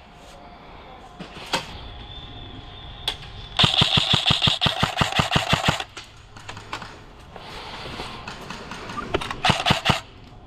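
Airsoft gun firing: a single shot or two, then a rapid full-auto burst of about two seconds at roughly ten shots a second, and a shorter burst near the end.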